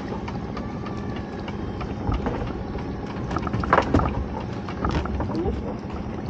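Small boat's engine idling steadily while a crab pot is hauled up its rope to the side of the boat, with scattered knocks and water splashing and a louder clatter about four seconds in.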